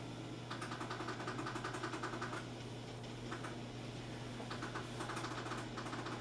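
Rapid runs of short electronic ticks from a First Alert SFA1150 weather radio as its buttons are pressed to set the clock: a long run, a single tick, then a second run. A steady low hum sits underneath.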